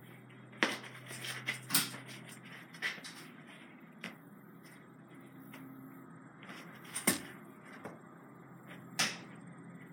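A handful of separate small clicks and knocks from handling the .22 rifle, the sharpest about seven and nine seconds in, over a faint steady hum.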